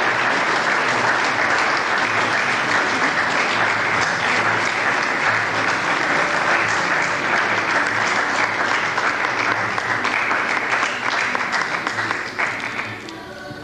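Audience applauding steadily. The applause dies away about a second before the end, leaving quieter music.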